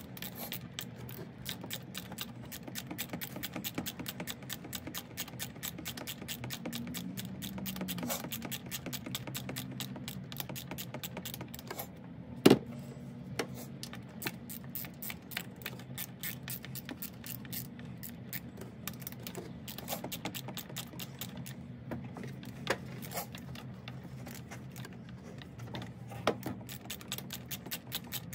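Rapid, even clicking of a hand driver turning down a hose clamp on an intake boot. There is a sharp metallic knock about halfway through and a smaller one near the end.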